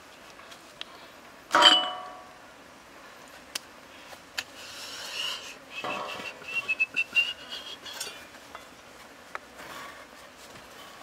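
A round metal tray clanks and rings loudly about a second and a half in, then rings again more softly near six seconds as it is moved, with a wavering high squeal over the following couple of seconds.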